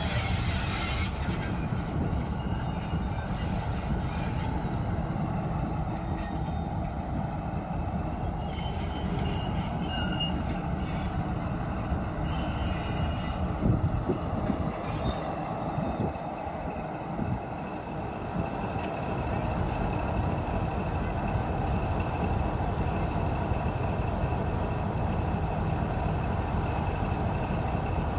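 Train wheels squealing against the rails over a steady rolling rumble. The high squeal tones come and go for about the first seventeen seconds, then die away, leaving the rumble.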